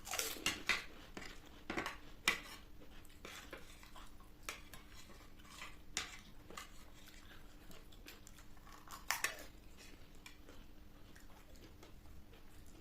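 A spoon clinking and scraping against a plate or bowl of food, in scattered sharp clicks: a quick cluster in the first couple of seconds, then single clinks around the middle and a last pair about nine seconds in.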